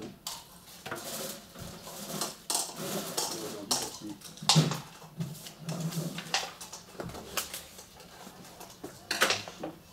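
Irregular clatter of objects being handled and set down on tables: a string of sharp knocks and clinks, loudest about four and a half seconds in and again near the end, with faint voices in the background.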